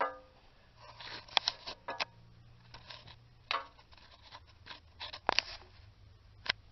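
Irregular light metallic clicks and taps of hand tools and bolts being worked on a transmission mount, over a faint steady hum.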